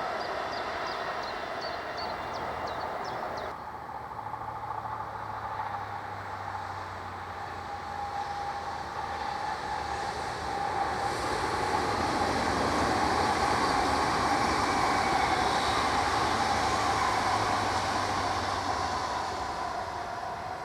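Electric S-Bahn train running, with a steady whine and a low hum. The sound changes abruptly about three and a half seconds in, then swells to its loudest in the second half and eases off near the end.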